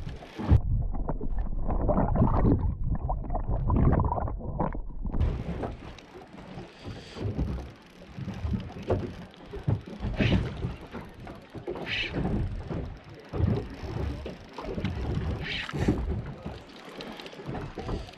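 Wind buffeting the camera microphone and water lapping against a small boat's hull, loud and muffled for the first five seconds, then a steadier wash with a few brief sharper sounds.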